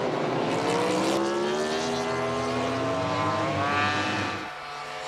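Suzuki GSX-RR MotoGP bike's inline-four engine at high revs, its pitch climbing as the bike accelerates. The sound falls away about four and a half seconds in as the bike passes.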